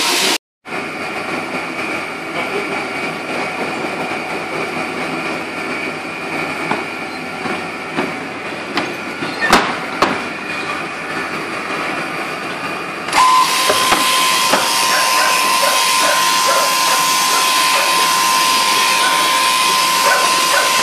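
Woolshed shearing gear running with a steady mechanical hiss and a few sharp knocks about nine and a half seconds in; about 13 seconds in an electric sheep-shearing handpiece starts cutting close by, a louder steady whine over the clatter of comb and cutter through the fleece.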